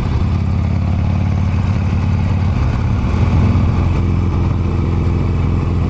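Harley-Davidson Iron 883's air-cooled V-twin running steadily under way, heard from the rider's seat, its note rising briefly about halfway through, with wind noise on the microphone.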